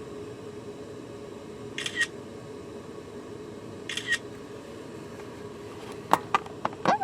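Camera shutter firing twice, about two seconds apart, each a quick double click, over a steady low hum; a few sharper clicks come near the end.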